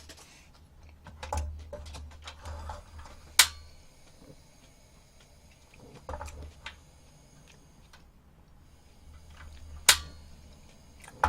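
Eating noises from a meal of eggs and rice: soft mouth and handling sounds with a few sharp clicks of utensils against a dish, two of them loud, about three and a half and ten seconds in.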